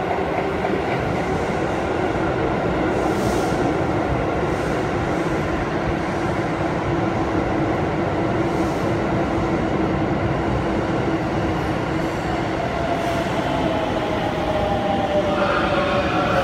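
Keisei 3700 series electric train pulling in along the platform, with a steady rumble of wheels on the rails and a held tone. About three-quarters of the way through, a whine sets in and falls in pitch as the train slows to stop.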